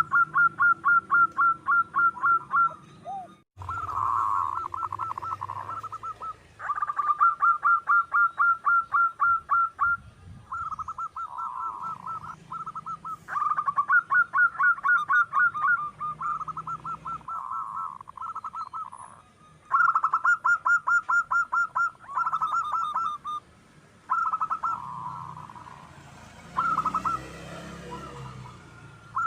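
Zebra doves (perkutut) calling in repeated bouts of quick pulsed coos, each bout a few seconds long with short pauses between. Faint high chirps of small birds sound in the background in the second half, and the sound cuts out for a moment a few seconds in.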